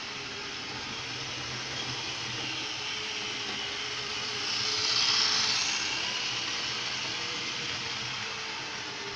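Model train, a CC 72001 diesel locomotive model pulling coaches, running along the track with a steady whir of its motor and wheels on the rails. It grows loudest about five seconds in as the locomotive passes close, then eases off.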